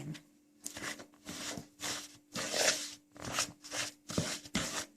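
Margarine and powdered sugar being creamed together in a bowl with a utensil: repeated short scraping, rubbing strokes, about two a second.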